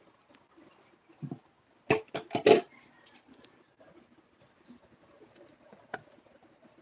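A few loud knocks about two seconds in, then a silicone-coated wire whisk beating hotcake batter in a bowl with faint, irregular clicking and tapping.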